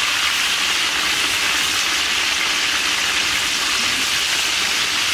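Fish steaks frying in a wok of hot oil, a steady loud sizzle.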